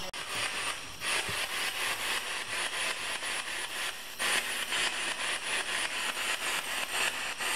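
Radio static from a ghost-hunting spirit box sweeping through stations: a steady hiss chopped about four times a second.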